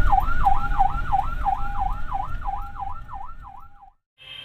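Siren in a fast yelp, its pitch rising and falling about three times a second, heard from inside a moving car over low engine and road rumble. It fades and cuts off near the end.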